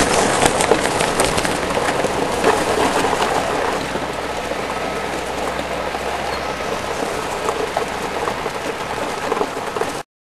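Wind and road noise from a moving golf cart: a steady rushing hiss with scattered crackles, a little louder in the first few seconds, cutting off abruptly near the end.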